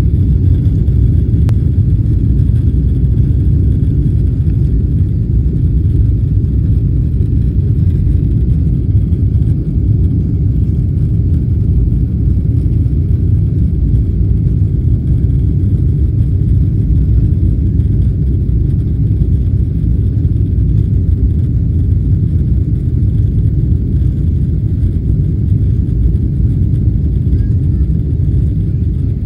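Airliner cabin noise in flight: a steady low rumble of the jet engines and rushing air, heard inside the cabin.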